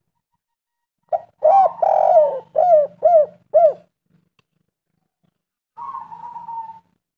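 Spotted dove (tekukur) cooing: after a second of quiet, a quick series of about six loud, arched coo notes, then a pause and a quieter, drawn-out note near the end.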